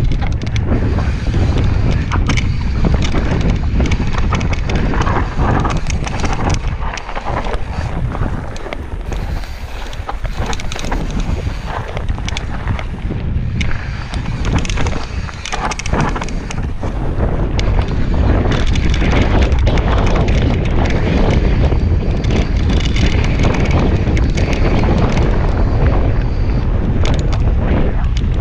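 Wind buffeting the microphone of a mountain bike descending at speed, over tyres rolling on dirt and gravel and frequent clicks and rattles from the bike over bumps. The wind rumble is heavier in the last third.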